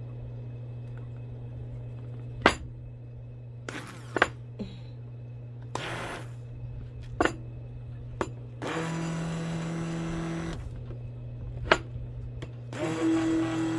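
Electric hand mixer whipping cream in a shallow dish: a steady motor hum, with the beaters knocking against the dish now and then. The whirring grows louder and changes pitch for two stretches, about nine seconds in and again near the end.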